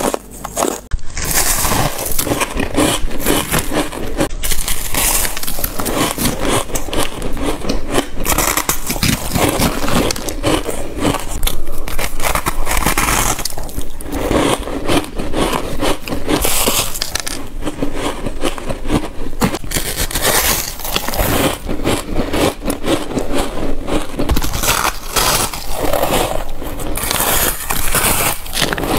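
Close-miked biting and chewing of soft, snow-like ice: dense, continuous crunching and crackling of packed ice crystals.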